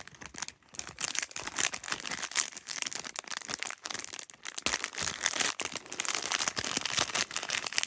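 Packaging crinkling and rustling in irregular crackles as a small wrapped toy accessory is unwrapped by hand.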